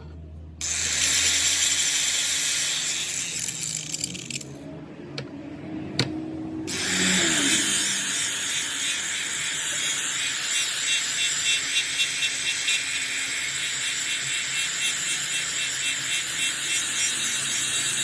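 A power tool working metal, giving a steady high hiss with a fast flutter. It stops for about two seconds a few seconds in, with a single sharp click, then starts again and runs steadily.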